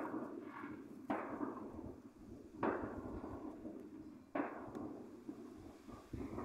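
Fireworks exploding in the distance: three sharp bangs roughly a second and a half apart, each trailing off in an echo, with a fainter pop near the end.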